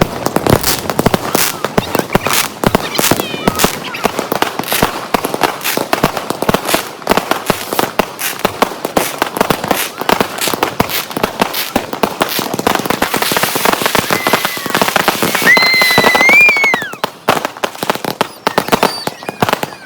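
Fireworks and firecrackers going off in rapid, irregular succession: a dense run of sharp bangs and crackles. A few seconds before the end a brief high tone rises and falls over the bangs.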